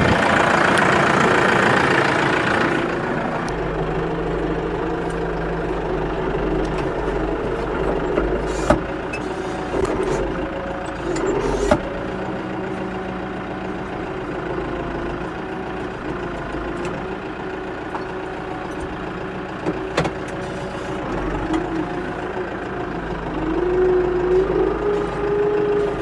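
Compact loader tractor's engine running steadily as it drives and carries a round hay bale, with a few sharp knocks and rattles. Near the end the engine note rises as it works harder.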